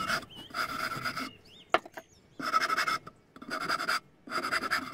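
Hand saw cutting into a block held in a vise, in repeated strokes of about a second each with short pauses between them. There is a single sharp click near the middle.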